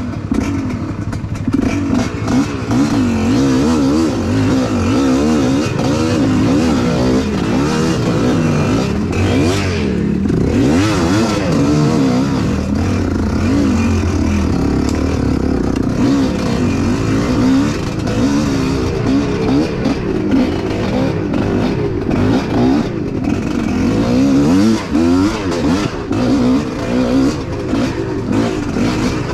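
Off-road trail motorcycle engine running hard, its pitch rising and falling again and again as the throttle is opened and closed.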